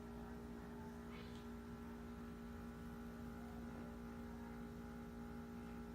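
A steady electrical hum, made of several fixed tones, with a faint brief rustle about a second in.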